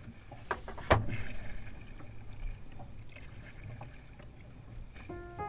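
Kayak paddling through shallow water: soft water sloshing with a few small clicks and one sharp knock about a second in. Music fades in near the end.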